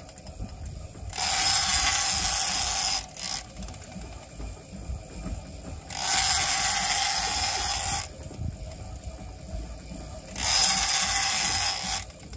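Heavy conventional fishing reel being cranked in three spurts of about two seconds each, its gears whirring as line is wound in, with quieter pauses between the spurts.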